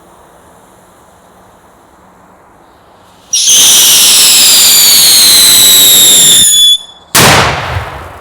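Whistling firecracker going off: a loud, shrill whistle falling slowly in pitch for about three and a half seconds, then a short pause and a sharp bang that dies away over about a second.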